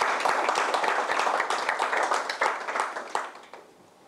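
Audience applauding, the clapping thinning out and stopping about three and a half seconds in.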